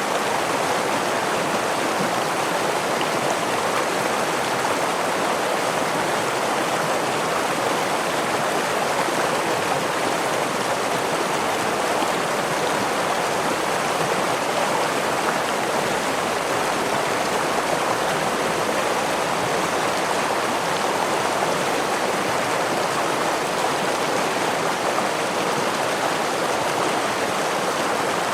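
Stream of water rushing over a small waterfall in a steady, even rush with no breaks.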